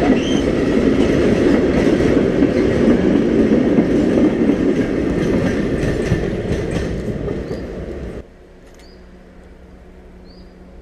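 Freight train passing at close range: wagon wheels rumbling, with rapid clicks over the rail joints. About eight seconds in the sound cuts off abruptly to a much quieter background.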